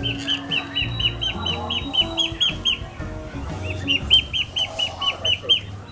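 Duckling peeping: rapid, high, short peeps, each bending downward, about six a second, in two runs with a brief pause near the middle.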